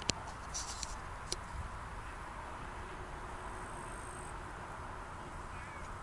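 Outdoor ambience in an open meadow: a steady low rumble of wind on the microphone under a soft hiss. A few sharp clicks and high rustles sound in the first second and a half, and a faint thin high tone comes in briefly about halfway.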